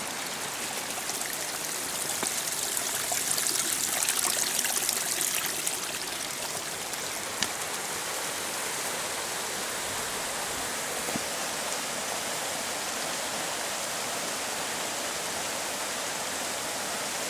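Small woodland stream running with a steady rushing hiss, louder for a few seconds near the start. A single sharp click about seven seconds in.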